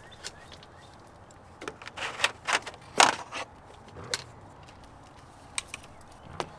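Sharp clicks and knocks of a vinyl sill extender and tools being handled, a quick cluster about two to three and a half seconds in, then a few single ticks.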